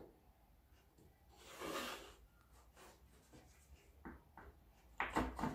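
A plywood board sliding and rubbing across a plywood base, followed by a few light clicks and then a quick cluster of wooden knocks near the end as the board with its bolts is set down and shifted into place.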